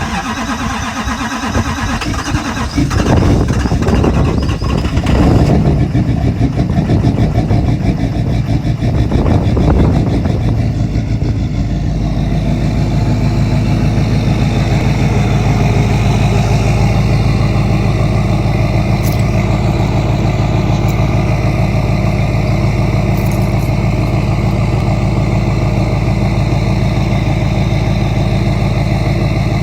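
LML Duramax 6.6-litre V8 turbo-diesel on a cold start, an engine with a blown head gasket. It runs unevenly for about the first ten seconds, then settles into a steady idle.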